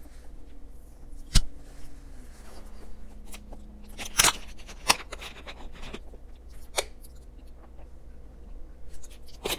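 Close-up eating sounds: a mouthful being chewed, with a few sharp clicks, then a plastic water bottle being handled and drunk from, with crackles near the end.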